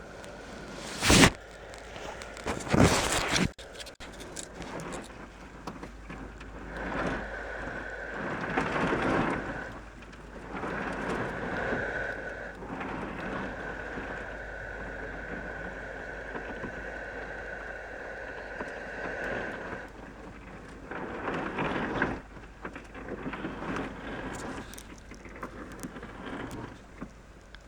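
Hiss and crackle of static from a marine VHF radio while waiting for a reply on channel 16, with a faint steady tone through the middle. Two sharp, loud knocks come in the first few seconds.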